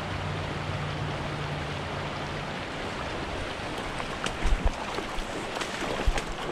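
Small creek running over rocks, a steady rushing, with a low hum of road traffic from a nearby highway that stops after a couple of seconds. From about four seconds in come sharp splashes and knocks as a hooked brown trout thrashes at the surface.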